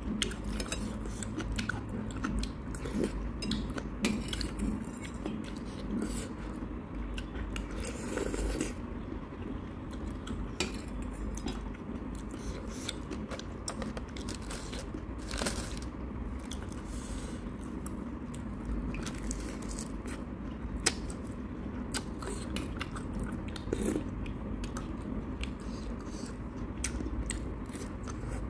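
Close-miked chewing and eating of ramyun noodles and fried pork belly, with scattered sharp clicks of a metal spoon and chopsticks against a ceramic bowl.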